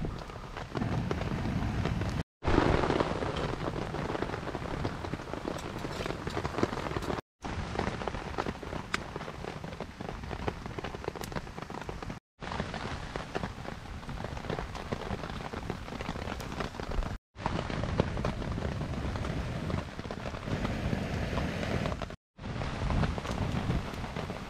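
Steady rain pattering on a tarp, with small sharp clicks and pops from a wood fire burning under a mess tin. The sound drops out to silence for a moment about every five seconds.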